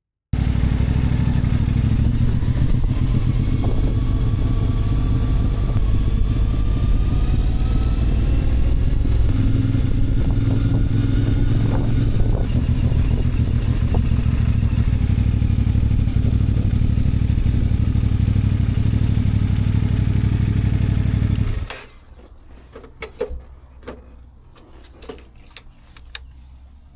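An engine running steadily and loudly, then cutting off suddenly about 22 seconds in, leaving only a few light clicks and steps.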